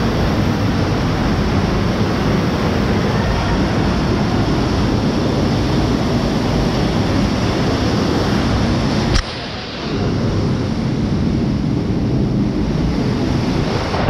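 Waterfall pouring right onto the camera: a loud, steady rush of falling water. About nine seconds in there is a sharp click, and the rush gets a little quieter.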